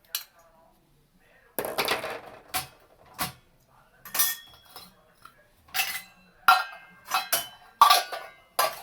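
Washed dishes and metal utensils clinking and clattering as they are handled in a dishwasher rack: about a dozen separate knocks, some ringing briefly, coming faster near the end.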